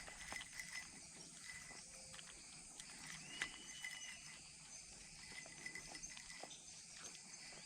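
Faint outdoor ambience: a steady high-pitched insect drone, with a few small clicks and knocks and a brief whistle-like call about three seconds in.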